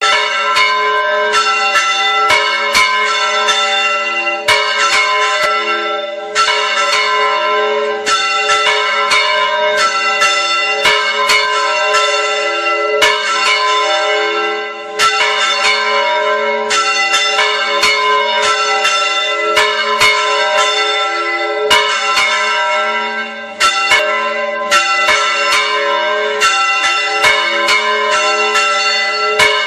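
Church bells ringing continuously, struck two or three times a second, each strike's tone ringing on under the next.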